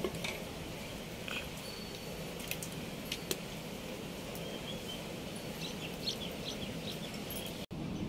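Small birds chirping several times in the second half over a steady background noise, with a few sharp clicks.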